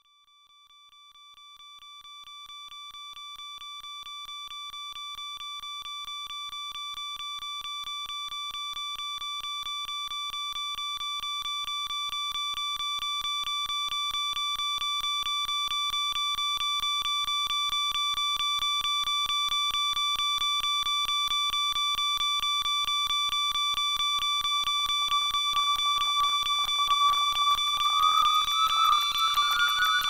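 Electronic alarm clock beeping in rapid, even pulses of a single high tone, fading in from silence and growing steadily louder. Near the end, extra warbling tones join in.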